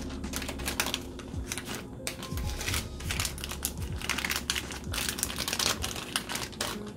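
Parchment paper crinkling and rustling in irregular crackles as it is lifted and rolled by hand, with quiet background music underneath.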